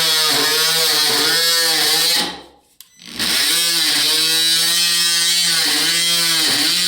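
Ryobi 18V cordless oscillating multi-tool running with a wood-cutting blade, cutting into wood, a steady buzzing hum whose pitch dips slightly as the blade bites. It stops a little over two seconds in, then starts again about a second later and keeps cutting.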